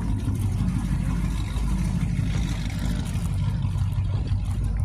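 An engine running steadily at idle, a low, even hum with no change in pitch.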